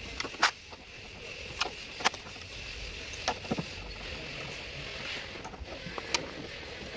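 Metal socket and extension bar clinking against the strut top-mount nuts as they are worked by hand: about six sharp, separate clinks over a steady background hum.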